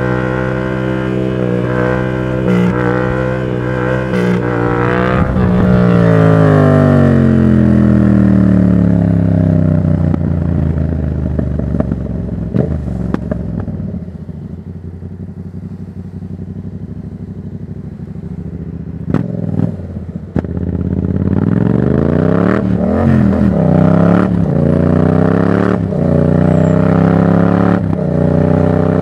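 Yamaha MT-07's parallel-twin engine running loud through a Black Widow aftermarket exhaust with no dB killer. It holds steady revs at first, then falls in pitch as the bike slows on closed throttle about five seconds in, and runs low and quieter for a while. Near the end it is blipped up and down a couple of times, then pulls hard with rising revs.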